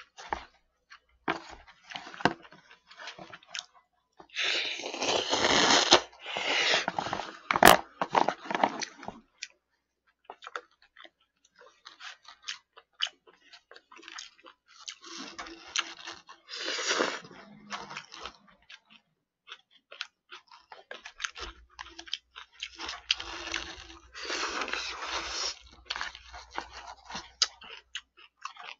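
Close-miked eating: chewing and slurping of spicy bibim naengmyeon noodles taken up with chopsticks, in bursts of a second or two. One sharp click comes about eight seconds in.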